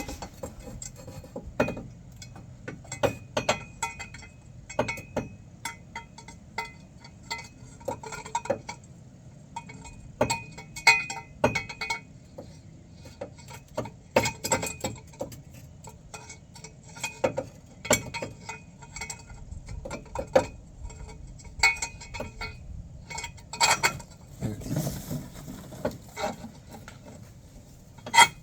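A metal exhaust up-pipe knocking and clinking against the engine and turbo hardware as it is worked up into position, with irregular sharp metallic knocks, some ringing briefly.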